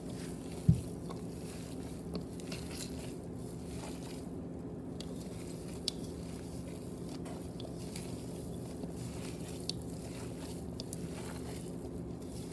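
Hands squishing and kneading a raw ground-beef meatloaf mixture in a bowl: soft wet squelches and small clicks over a steady low hum. A single low thump comes about a second in.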